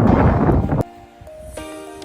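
Gusty wind noise on the microphone that cuts off suddenly under a second in, giving way to background music with long held notes.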